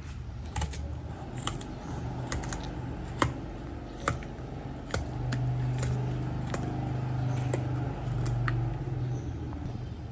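Kitchen shears snipping through the spiny skin of a porcupine puffer fish: a dozen or so sharp, irregular snips, roughly one a second. A low steady hum comes up under them for a few seconds in the middle.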